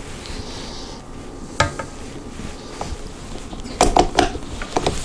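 Cookie dough being scraped off a stand mixer's coated flat beater, with the beater and spatula knocking against the stainless steel mixing bowl: a sharp knock about a second and a half in and a quick run of knocks around four seconds.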